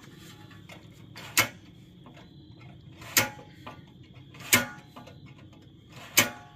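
Four sharp mechanical clicks, each with a short ring after it, spaced about one and a half seconds apart, as a part of a booth fixture is adjusted or set into place.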